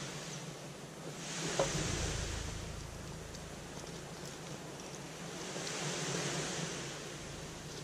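Rushing hiss of wind and surf, swelling about a second in and again around six seconds, with a low wind rumble on the microphone in between.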